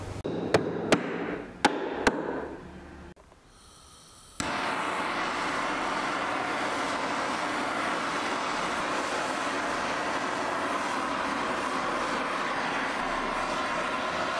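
A handheld butane torch burning with a steady hiss as its flame is played over pine tabletop slats to char them; the hiss starts abruptly about four seconds in. Before it come a few sharp knocks.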